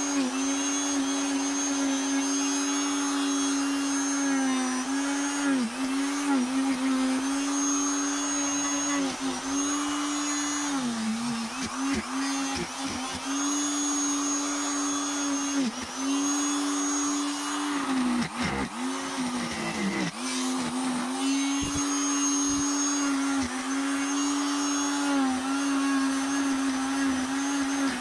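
Electric straight grinder running with a steady whine as its bit carves olive wood. Its pitch dips briefly again and again as the bit bites into the wood and loads the motor, at speed setting 3, where it catches less and bounces less.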